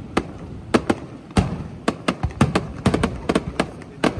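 Aerial fireworks going off in a quick, irregular string of sharp bangs, a dozen or so, about three a second, each with a brief echoing tail.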